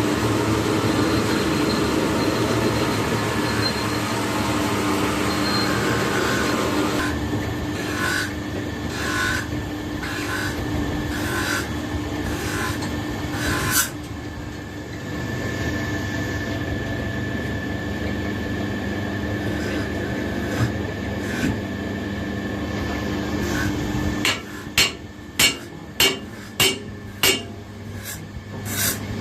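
A workshop machine hums steadily while a hammer strikes metal. A run of evenly spaced blows comes about a third of the way in, and a quicker series of sharp, ringing blows, about two a second, comes near the end.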